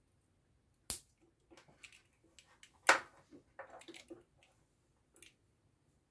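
Hands handling wires and small plastic electrical parts on a desk: a sharp click about a second in, a louder knock about three seconds in, then a run of small clicks and rustles.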